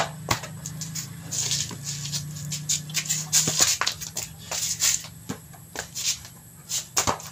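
Irregular knocks, taps and scuffing rustles from a child moving about and handling a basketball close to the microphone, over a steady low hum.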